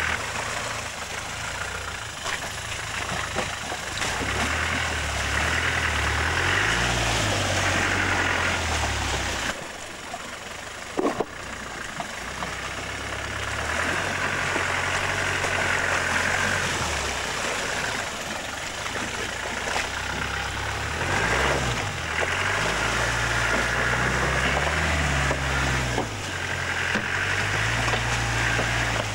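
Land Rover Defender 90 engine running under load as it crawls through deep muddy ruts, revving up and down again and again with the throttle. About a third of the way in, the sound drops briefly and there is one short sharp click.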